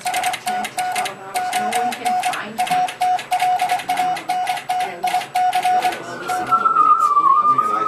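Morse code keyed on a wireless telegraph: a buzzing, raspy tone sounded in short and long dots and dashes, sending the Republic's 1909 distress message. About six seconds in the keying stops and a wavering whistle begins, sliding slowly down in pitch like a radio receiver being tuned.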